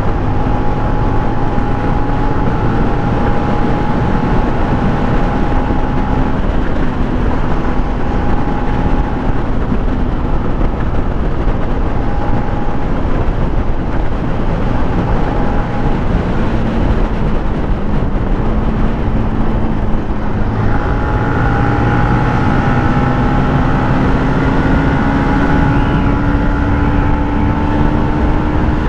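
Motorcycle riding at speed: heavy wind rush over the on-board camera with the engine's steady drone beneath it. About two-thirds of the way in the engine note grows stronger and climbs slowly as the bike accelerates.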